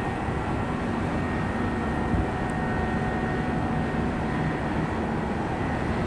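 Freight train rolling away into the distance, a steady low rumble with a faint steady high tone above it.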